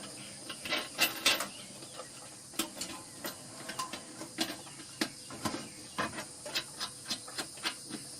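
Irregular short metallic clicks and scrapes, a few a second, as a gas hose fitting is handled and screwed onto a burner's connection. Crickets chirp steadily behind.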